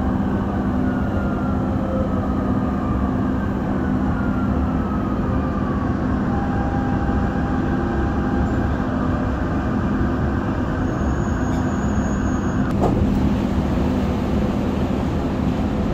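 Dubai Metro train heard from inside the car: steady running rumble with a low hum and a motor whine that falls in pitch over the first several seconds as the train slows for the station. There is a single sharp knock about thirteen seconds in.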